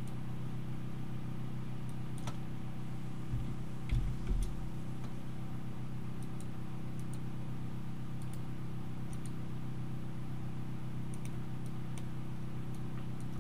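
Computer mouse clicks, a few scattered light ticks, over a steady low electrical hum. A few dull low thumps come about three to four seconds in.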